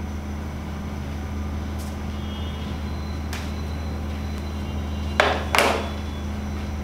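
Steady low hum, with two short loud noisy bursts about five seconds in, half a second apart.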